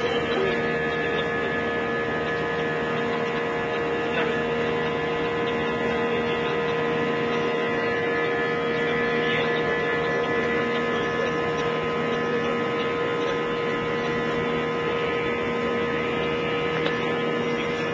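Jet airliner's engines and cabin air heard from inside the cabin during the climb after takeoff: a steady drone carrying several steady hum tones.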